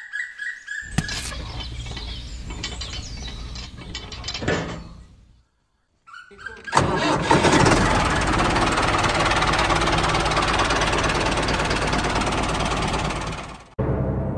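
An engine starts and runs with a fast knocking beat, then fades out about five seconds in. After a short silence, an engine runs louder and steadily and cuts off suddenly near the end.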